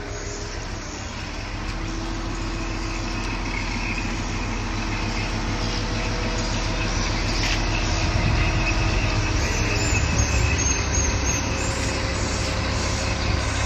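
Mobile crane's engine running steadily under load with a whine on top, growing gradually louder over the first several seconds as the crane works its hook and boom.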